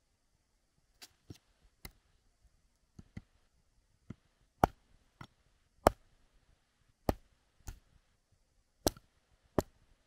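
Hatchet chopping firewood into kindling: about a dozen sharp wooden knocks, roughly one a second, striking harder from about four seconds in.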